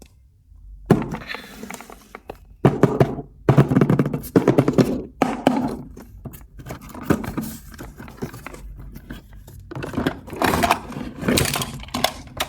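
Plastic toys being handled, with a run of sharp knocks, clatters and scrapes, thickest in the first half and again near the end.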